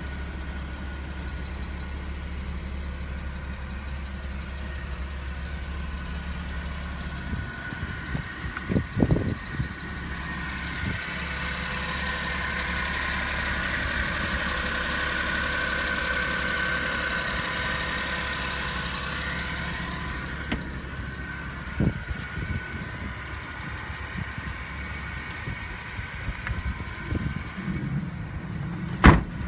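Cab-over truck's engine idling steadily, louder and hissier for several seconds midway as the microphone passes under the vehicle. A few short knocks of handling, the sharpest near the end.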